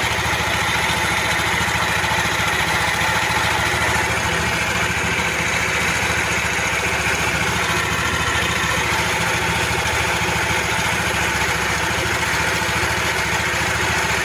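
Yamaha NMAX V1 scooter's single-cylinder engine idling steadily with a ticking, metallic clanking noise from inside the engine, the fault that led to a top overhaul.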